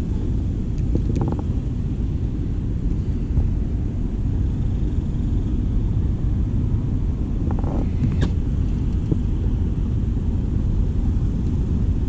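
Steady low wind rumble buffeting the microphone out on open water, with a couple of faint short ticks about a second in and again near eight seconds.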